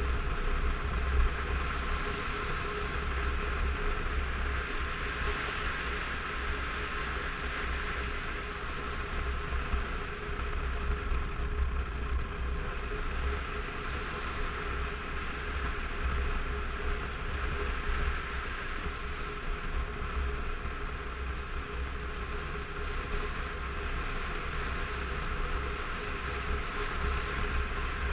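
Motorcycle engine running at a steady cruising speed, with heavy wind rumble buffeting the microphone.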